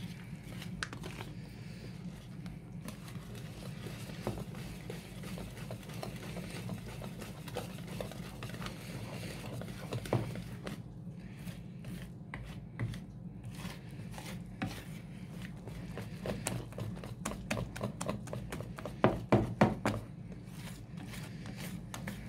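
Wire whisk beating flour and cocoa into a chocolate cake batter in a bowl: quick, steady clicking and scraping of the wires against the bowl, with a few louder taps near the end. A steady low hum runs underneath.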